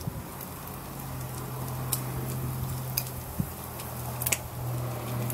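Food sizzling on a barbecue grill, with scattered pops and ticks, over a steady low hum.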